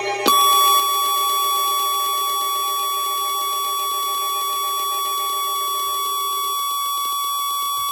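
Emergency alert attention tone: a single steady electronic tone held at one pitch for about seven seconds, loudest just after it starts, signalling that a warning message follows.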